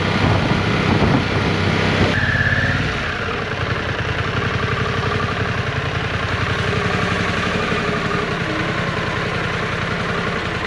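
Harley-Davidson Pan America Special's Revolution Max V-twin engine running under way. About two seconds in, the sound drops abruptly to a quieter, steady, evenly pulsing low-speed run close to idle.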